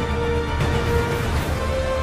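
Background music with held notes over a steady low bass line.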